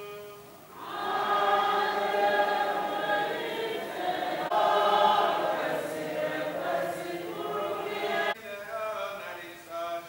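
Congregation singing together in a sung church response, many voices holding the notes. It starts about a second in and breaks off abruptly near the end, where a single voice follows.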